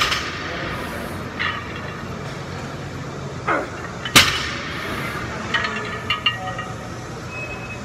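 Loaded barbell with iron plates (475 lb) set down on a rubber gym floor between sumo deadlift reps: a sharp clank right at the start and again about four seconds in, each touchdown preceded by a short falling-pitch sound. Lighter plate clinks follow about a second and a half after the second touchdown.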